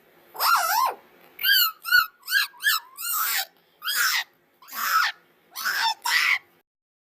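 A person making high-pitched, animal-like vocal sound effects for a small character: a wavering squeal, then a quick run of five short chirps, then five breathy, raspy huffs.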